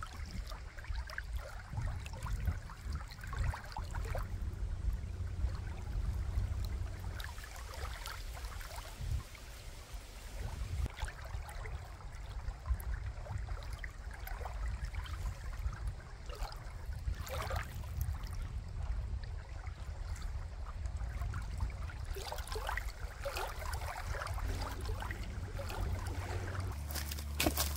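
Small waves lapping and trickling on a gravelly lakeshore, with a steady low wind rumble on the microphone.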